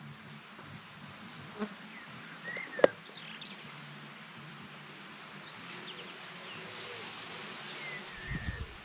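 Open-air ambience with small birds chirping now and then over a faint steady low hum. There is a sharp click about three seconds in, the loudest sound, and a few low thumps near the end.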